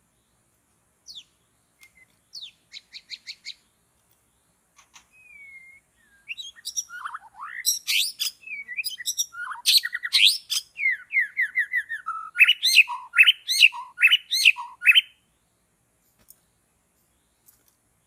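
White-rumped shama song: a few scattered notes and a quick run of repeated notes, a short whistle, then from about six seconds in a long, loud stretch of varied whistled phrases and chattering notes that stops a few seconds before the end.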